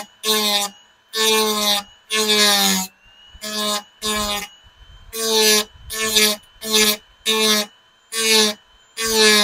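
Dremel rotary tool taking short cuts into grille mounting tabs to trim them flush: about a dozen brief bursts of cutting, each under a second, the pitch dipping as the tool bites, with the motor whining faintly between cuts.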